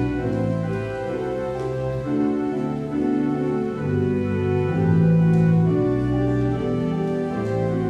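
Organ music: sustained chords held and changing every second or so over a bass line.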